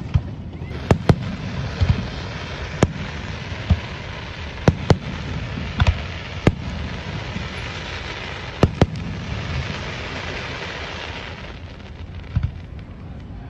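Aerial firework shells bursting: about a dozen sharp bangs, several in quick pairs, over a continuous crackle from the burning stars that swells and then dies away near the end.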